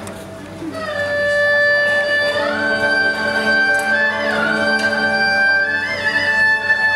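Traditional Vietnamese live music in which a bowed fiddle plays a slow melody. Its long held notes slide up and down between pitches, and the melody enters about a second in.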